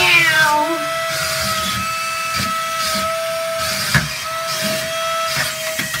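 Suction fan of a remote-control wall-climbing toy car running with a steady high whine. A short falling cry sounds over it at the start, and a sharp click comes about four seconds in.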